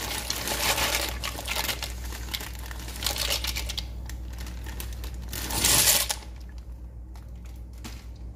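Plastic packet of dry penne crinkling, with scattered clicks and rattles of the hard pasta. A loud, brief rush of noise comes about five and a half seconds in.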